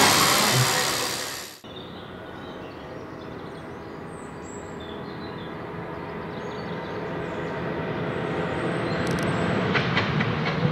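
Porsche 992 GT3 R racing car's flat-six engine, with a silenced exhaust, approaching and growing steadily louder, with a few sharp clicks near the end. Before that, a louder car engine fades and cuts off about a second and a half in.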